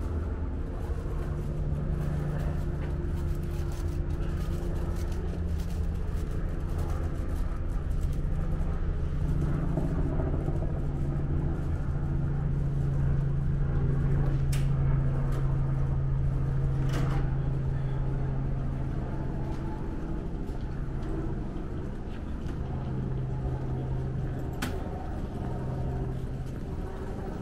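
Busy street ambience under a steady low engine hum, with people's voices and a few sharp clicks.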